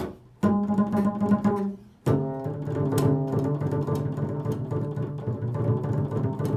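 Improvised instrumental music with a low, string-like sound: a held note from about half a second in, a brief drop, then from about two seconds a steady sustained chord.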